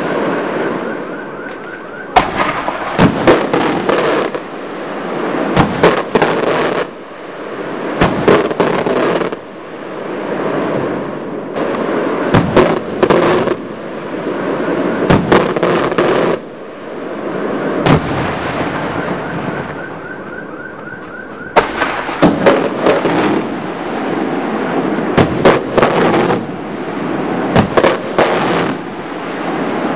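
Daylight aerial fireworks going off: loud, sharp bangs of bursting shells every second or so at irregular intervals, with a continuous crackling and rumbling of smaller reports between them.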